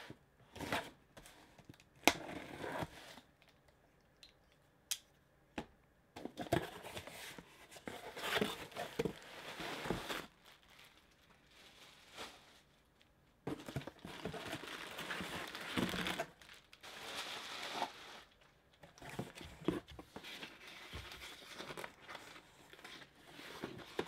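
Packing tape being torn off a cardboard shipping box and the flaps pulled open, then bursts of rustling and crumpling as hands dig through what is packed inside, with a few sharp clicks and knocks along the way.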